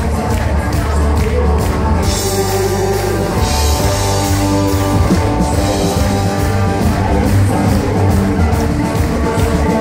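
Live amplified band playing rock-flavoured country: strummed acoustic guitar, electric guitar and drum kit, with a man singing into the microphone.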